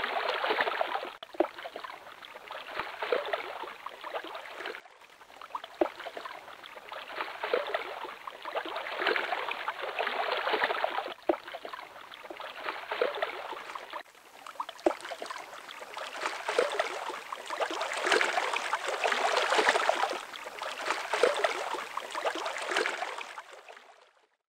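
Water splashing and lapping, rising and falling in irregular swells every few seconds, with scattered sharp clicks.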